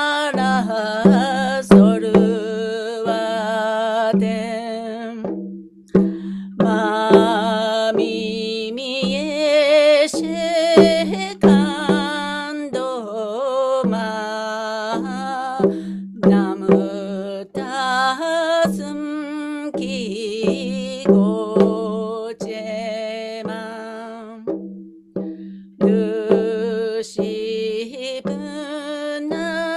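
A woman's voice chanting a Tibetan Chö supplication prayer in a slow, sung melody with long held notes. A Chö damaru drum beats along with it.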